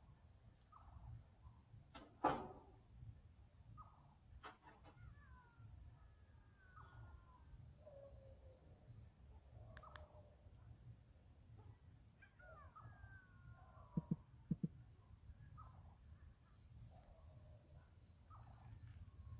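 Faint night ambience of scattered bird calls that slide down in pitch, over a steady high-pitched whine. A single sharp click sounds about two seconds in, and three quick knocks come close together about fourteen seconds in.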